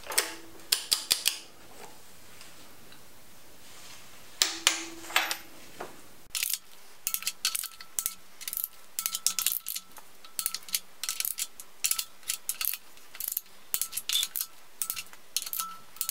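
Click-type torque wrench working cylinder head nuts down in the first 20 N·m pass: short groups of sharp metallic clicks near the start and about four seconds in, then rapid ratchet ticking as the wrench is swung back and forth from about six seconds on.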